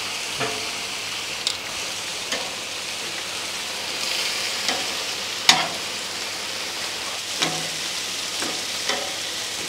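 Marinated carne asada and chicken sizzling steadily on a Blackstone griddle's flat steel top. Metal tongs click against the plate several times as the meat is turned, with the sharpest click about halfway through.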